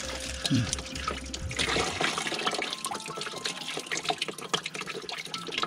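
Coolant draining out of a Kubota RX303S mini excavator's cooling system, a steady stream of liquid pouring and splashing, with a short rising gurgle about half a second in.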